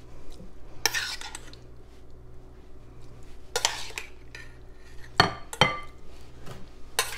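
Metal spoon scraping and clinking against a stainless steel pot as drained vegetables are spooned into a glass bowl, with a few sharp clinks in the last couple of seconds.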